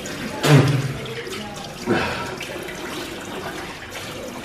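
Tap water running steadily into a washbasin while a man rinses out his mouth. There is a loud, short, low vocal sound about half a second in, and a second, smaller burst just before two seconds.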